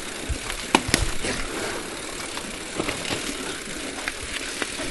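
Bicycle riding over a rough trail road, its parts rattling and clicking irregularly over a steady rushing noise, with the sharpest knocks about a second in.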